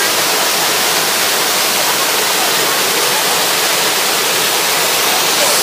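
Mountain waterfall cascading over rocks into a stream: a loud, steady rush of water, mostly high hiss with little low rumble.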